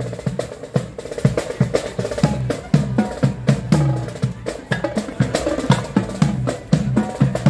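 Marching drum corps playing a quick, steady cadence on snare and tenor drums while on the move.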